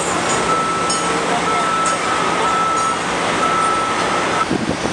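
Construction-site machinery running steadily, with a thin high tone that stops near the end.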